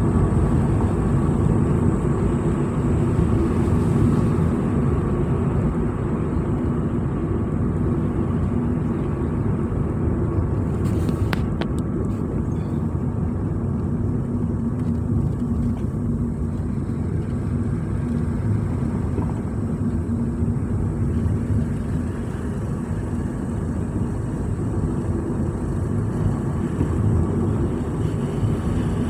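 Vehicle driving at a steady pace: constant engine hum and road rumble, with a brief click about eleven seconds in.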